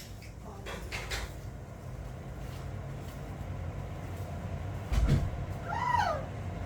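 A steady low hum, a thump about five seconds in, then near the end a short call from an Amazon parrot that rises and falls in pitch.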